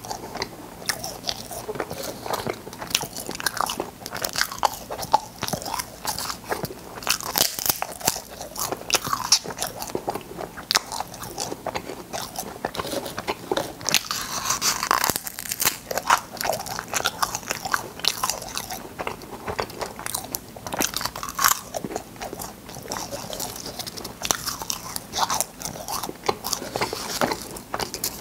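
A person crunching and chewing cola space candy, with a dense, irregular run of crisp cracks and bites.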